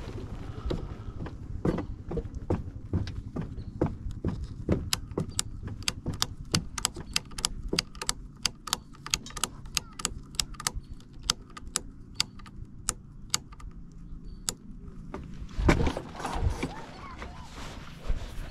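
Snowmobile engine idling low and steady, with a run of sharp ticks, about two or three a second, through the middle. A loud rustling thump comes near the end.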